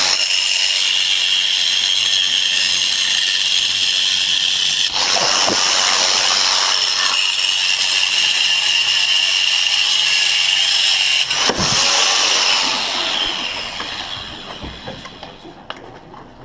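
Handheld power tool running with a steady high whine, broken off briefly twice, then winding down and fading about three-quarters of the way through.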